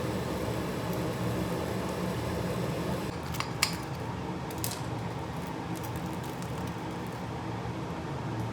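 Steady fan-like hum with a few sharp clicks, two close together about three and a half seconds in and a fainter one a second later.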